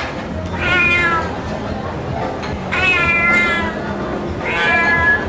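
A cat meowing three times, each meow about a second long and about two seconds apart, over a low murmur of background noise.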